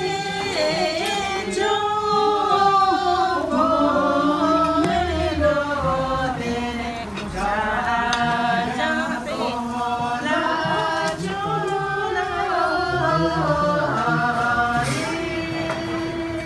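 Several voices singing a slow song together without instruments, drawing out long held notes.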